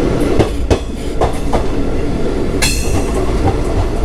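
Passenger train running along the track, its wheels clacking over rail joints several times in the first second and a half over a steady rumble. A little past halfway the wheels give a brief high-pitched squeal, typical of flanges grinding as the train takes a curve.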